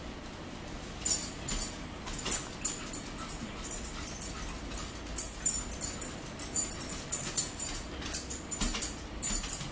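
Irregular light clinking and tapping of cutlery against dishes, starting about a second in.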